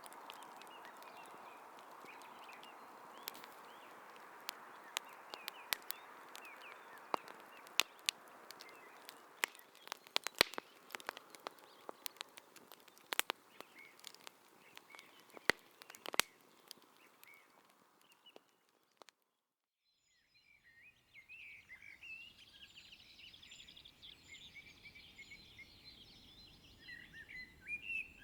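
Wood campfire crackling, with a steady hiss and many irregular sharp pops. After a brief silence about two-thirds of the way in, birds chirp.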